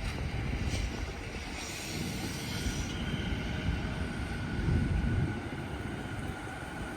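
Strong wind buffeting the microphone, with an uneven low rumble, over an electric commuter train running slowly across a railway bridge under a wind speed restriction. A faint steady whine comes in about two and a half seconds in.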